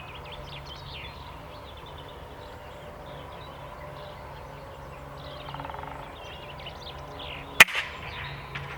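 Birds chirping in the background, then about three-quarters of the way through a single sharp crack from an Air Arms S510 PCP air rifle firing a shot.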